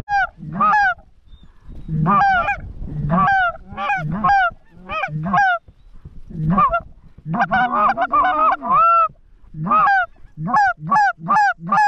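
Canada goose honks and clucks in a rapid series, each short call dropping in pitch, with a run of overlapping calls a little past the middle.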